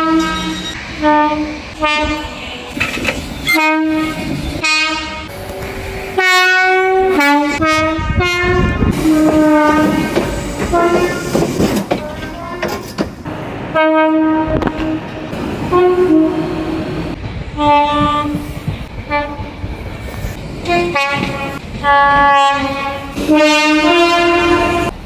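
Two-tone horns of Class 313 electric multiple units, sounded over and over in short blasts that alternate between a higher and a lower note. Between some of the blasts a train can be heard rumbling over the rails as it moves off.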